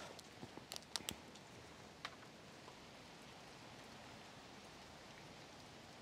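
Light steady rain falling, a faint even hiss, with a few small sharp clicks about a second in and another near two seconds.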